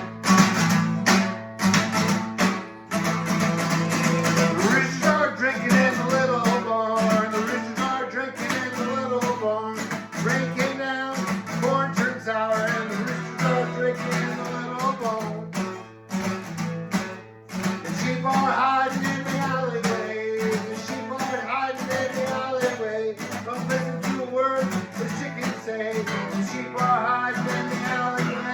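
Instrumental band music led by strummed acoustic guitar, with a steady rhythm, a bass line and a melody on top.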